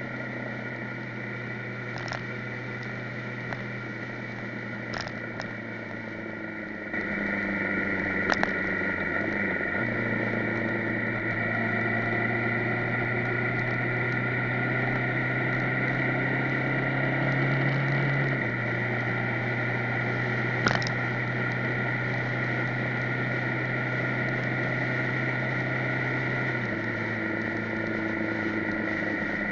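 Motorcycle engine running steadily on the road, heard from a camera mounted on the bike. The engine note shifts pitch in steps a few times as the ride goes on, and there are a few short sharp knocks.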